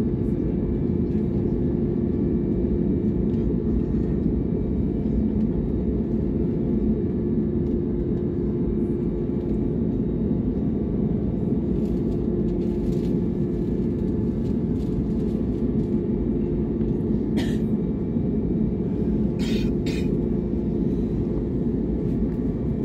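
Steady low rumble with a constant hum inside an airliner cabin, while the wing is de-iced. Three brief clicks come about three-quarters of the way through.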